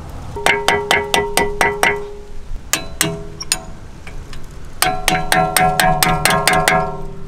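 Background music: a quick, clicky percussion beat over held chord tones. The beat thins out in the middle and comes back near the end on a new chord.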